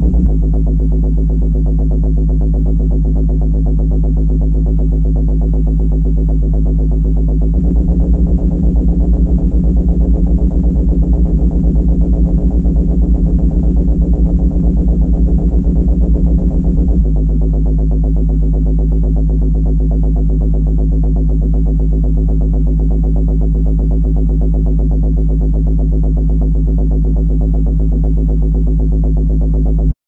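Synthesized sci-fi supercomputer sound effect: a steady electronic drone of layered low hums. It takes on a fast pulsing flutter about seven seconds in, settles back to a steady drone about ten seconds later, and cuts off abruptly at the end.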